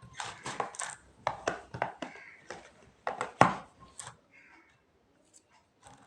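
A quick run of small knocks and clinks from the measuring cylinder and test tube being handled while water is poured into the test tube, the loudest knock about three and a half seconds in, then it goes quiet.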